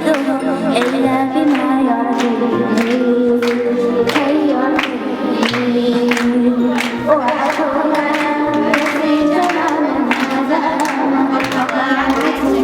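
Music with a group of voices singing together over a steady beat of about two strokes a second.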